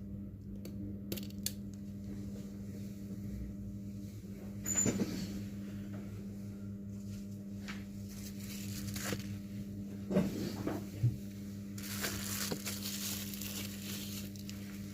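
Small clicks, taps and a stretch of scraping from tools and parts being handled during a phone display repair, over a steady low electrical hum.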